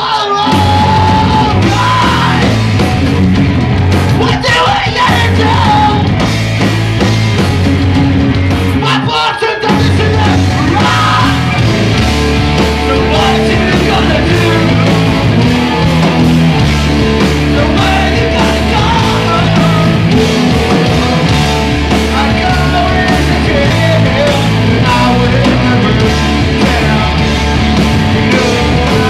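Live rock band playing loud: electric guitars, bass and drums with vocals at the microphone, with a brief break about nine seconds in before the band comes back in.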